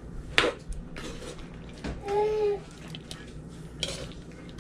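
Metal ladle clinking against a wok while stirring a curry: a sharp knock about half a second in and another near the end. About two seconds in, a brief held tone lasts about half a second.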